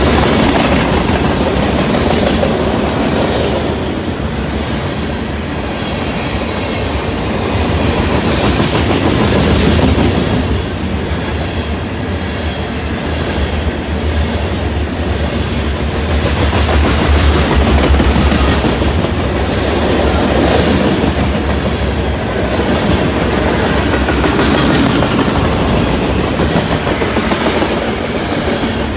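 Freight cars of a Norfolk Southern train rolling past at speed: a steady rumble with the wheels clacking over rail joints. The loudness swells and eases as the cars go by.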